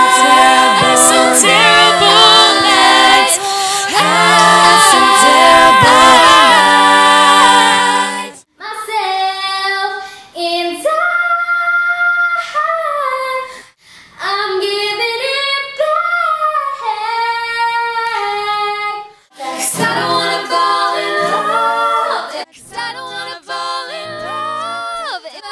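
Female voices singing a cappella in close harmony. It then cuts to a solo female voice holding a high sustained note, F5, with other sung phrases around it. Near the end, a group sings again.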